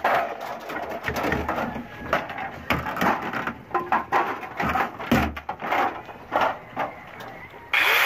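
Plastic inner door liner of an old refrigerator being pried and pulled off by hand: irregular cracks, snaps and knocks of the plastic. Near the end, loud music cuts in.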